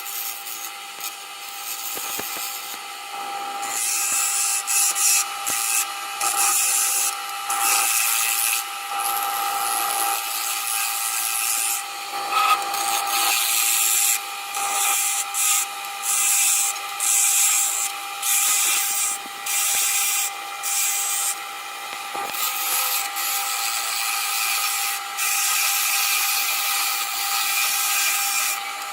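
Wood lathe running with a steady motor hum while a parting tool cuts into the spinning wood. The cutting is a scraping hiss that comes and goes in short spells, about a second each, with brief gaps between them.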